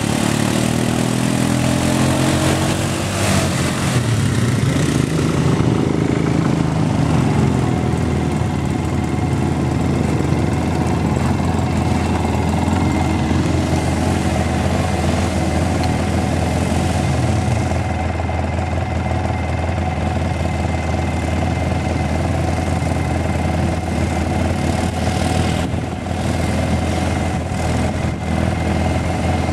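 ATV engine running, its pitch rising and falling over the first several seconds, then running steadier.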